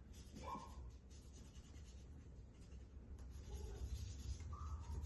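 Felt-tip marker colouring on folded paper, the tip rubbing and scratching over the paper in short repeated strokes.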